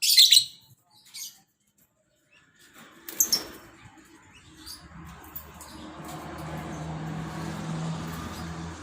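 Lovebirds giving short, shrill calls: a loud one at the start, a fainter one a second later and another about three seconds in. From about five seconds a steady low hum builds and holds underneath.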